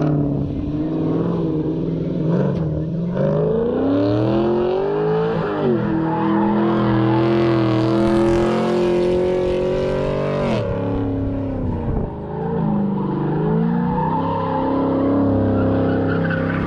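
Car engine held at high revs while the car spins donuts, rear tires spinning and squealing into smoke. The revs climb about four seconds in and stay high with a hissing tire screech. They drop sharply past the halfway point, then build again toward the end.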